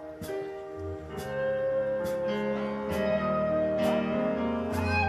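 Live gospel band playing a song's instrumental intro: held guitar notes over a steady beat of about one stroke a second.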